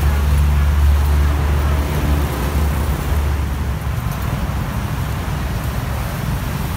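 Busy road traffic. A heavy vehicle's engine rumbles low and steady for the first three seconds or so, then fades into the general hiss of cars and motorcycles passing on a wet road.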